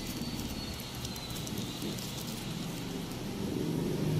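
Cardboard earbud packaging and a charging cable being handled: soft rustles and small clicks over a steady hiss, with a low rumble growing near the end.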